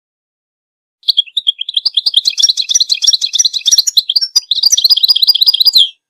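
European goldfinch singing a rapid, continuous twittering song of high chirps, starting about a second in and cutting off just before the end.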